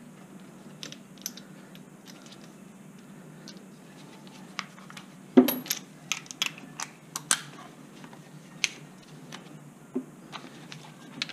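Scattered clicks and clinks of metal tools and parts being handled while the new control arm bolt is fitted. The loudest knock comes about five seconds in, followed by a quick run of sharper knocks over the next two seconds.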